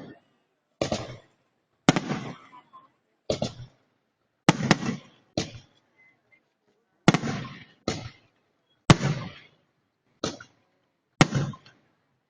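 Fireworks display: aerial shells bursting one after another, about ten sharp bangs in twelve seconds, each trailing off in a short rumbling echo.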